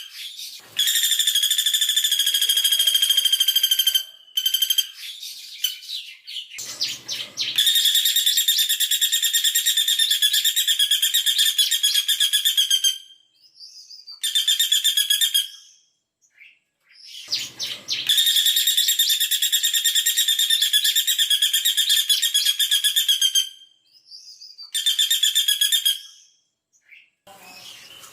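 Female caladi bawang woodpecker calling: long, very rapid trills, repeated in four bursts of a few seconds each with short pauses between them. Its fast, closely spaced double trill is the 'tembakan' prized by bird keepers. Two faint knocks come in the pauses.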